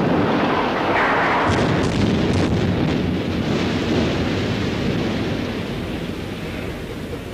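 Large structure collapsing in a controlled demolition: a steady deep rumble with crackles of falling debris about one and a half to two and a half seconds in, slowly dying away.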